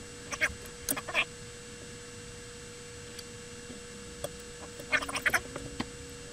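Small metal parts and tools clicking and rattling in short bursts as an airsoft gun's internals are handled and fitted, a few clicks about a second in and a quick cluster about five seconds in, over a steady faint hum.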